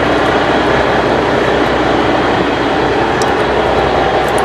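Steady drone of the trawler's engine running on deck, with a few faint clicks over it.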